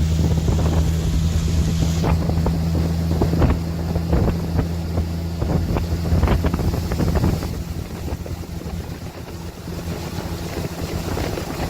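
Boat motor running steadily under way, with wind buffeting the microphone. About seven and a half seconds in the motor eases off and runs more quietly.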